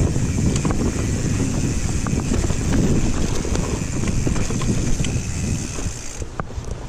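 Wind buffeting the microphone over the rumble of a mountain bike's tyres rolling fast down dirt singletrack, with scattered clicks and rattles from the bike over rough ground. The wind noise eases about six seconds in.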